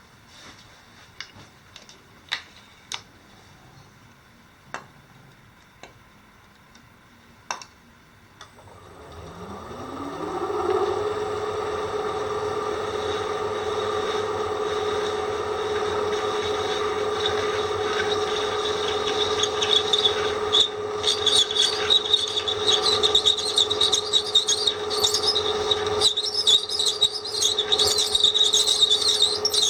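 A few light clicks, then an electric drill spins up about a third of the way in and runs at steady speed. Later the bit bears on the work with a high, rough squeal and scraping: the whistle of a dull drill bit.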